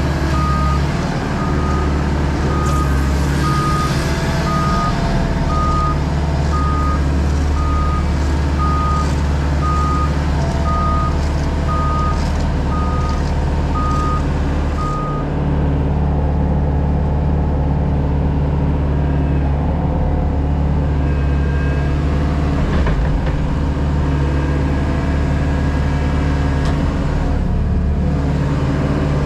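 JCB Pothole Pro's diesel engine running steadily while its travel alarm beeps about once a second; the beeping stops about halfway through and the engine note shifts as it does.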